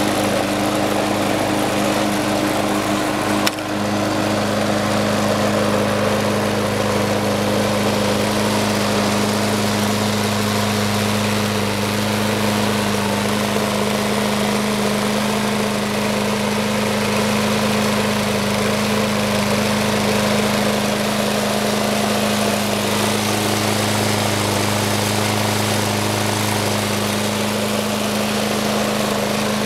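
Snapper Hi-Vac walk-behind lawn mower's Briggs & Stratton engine running steadily at an even speed, with one brief knock about three and a half seconds in.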